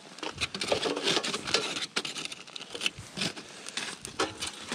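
Aluminum foil crinkling and crackling in irregular bursts as a foil-wrapped packet of cooked trout is peeled open by hand.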